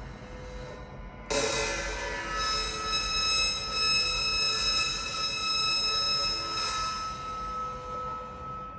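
Metal percussion struck suddenly about a second in, then ringing with several steady, high squealing tones that hold for about six seconds and fade near the end.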